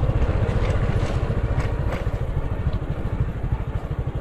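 Small motorcycle engine running steadily at low road speed, its exhaust a fast low pulsing, with light rattles from riding over a rough dirt track.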